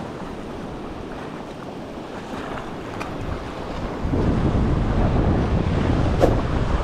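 Wind noise on the microphone over the wash of sea waves, growing louder about four seconds in.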